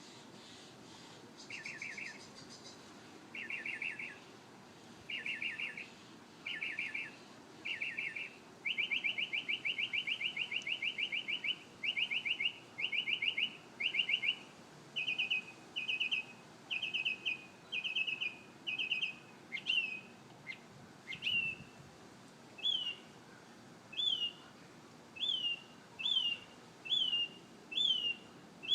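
A songbird singing a varied song: short groups of rapid trilled notes repeated every second or so, a longer fast trill near the middle, then clear downslurred whistled notes about once a second.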